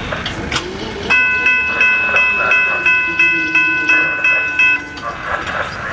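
Railroad grade-crossing warning bell ringing rapidly, about three strikes a second, then stopping near the end, over the rumble of the approaching Brightline passenger train.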